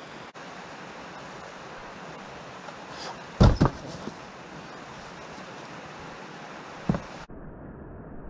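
Steady outdoor rushing noise with a cluster of loud thumps about three and a half seconds in and a single thump near seven seconds. The background changes abruptly twice where recordings are spliced.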